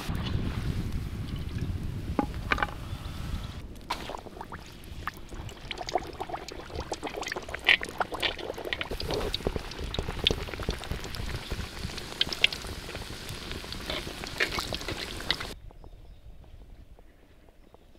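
Liquid pouring and trickling, with scattered short clicks and knocks. The sound cuts off abruptly near the end, leaving only a faint background.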